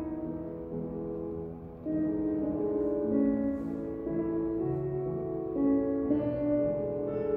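Slow instrumental classical music with held notes, playing as ballet barre accompaniment. It dips briefly just before two seconds in, then carries on.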